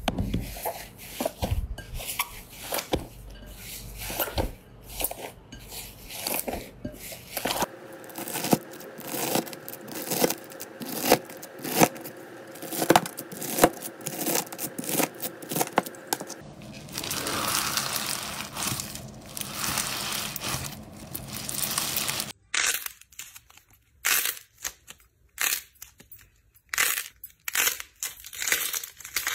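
Slime being handled up close. First, fluffy slime is squished and pressed by fingers. In the middle, a knife cuts through crunchy bead-covered slime with repeated sharp crackling clicks. Near the end, thick clay-like slime is stretched and torn apart in short crinkling snaps with quiet gaps between them.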